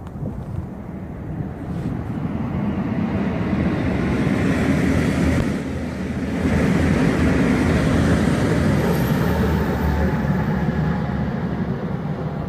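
KTX high-speed electric train passing over a concrete railway bridge: a steady rushing rumble of wheels and air. It builds over the first few seconds, is loudest through the middle and eases a little near the end.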